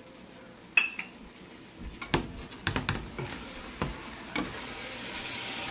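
A slotted spoon stirring bitter melon and egg in a stainless steel pan, knocking and scraping against the pan, with a sharp clack about a second in. The simmering food sizzles with a hiss that grows near the end.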